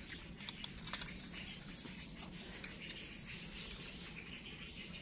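Faint scattered scratching and light clicks from trapped live rats moving about.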